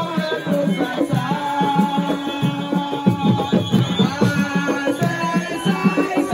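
Music: fast, dense hand drumming under a held melody line.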